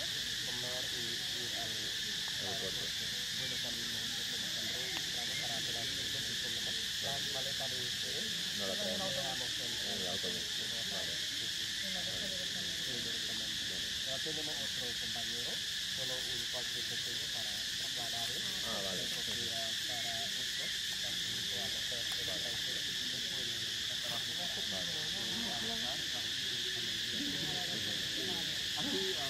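Steady chorus of forest insects droning without a break, with faint, irregular low voices or calls underneath.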